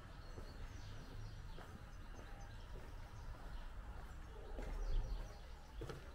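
Outdoor ambience: faint bird chirps over a steady low rumble. The rumble swells briefly about five seconds in, and a few soft clicks follow near the end.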